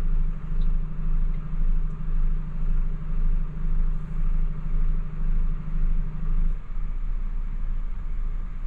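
DAF XF truck's diesel engine running, heard from inside the cab as a steady low rumble. A steady hum over it stops about six and a half seconds in.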